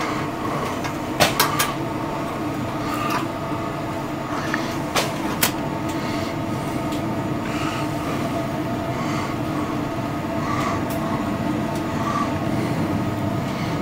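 Steady machinery hum, with a few sharp metallic clicks a little over a second in and twice around five seconds in as the oil dipstick is pulled from its tube and handled.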